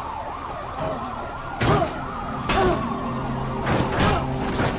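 Fire engine sirens wailing in quick up-and-down sweeps for the first second and a half. Then come several sudden loud hits, the loudest sounds here, over a steady low drone.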